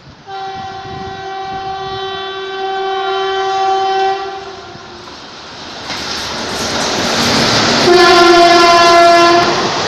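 Indian Railways electric locomotive horn sounding one long blast as a passenger train approaches. The train's running noise then rises as it passes close by, with a second horn blast near the end, a little lower in pitch.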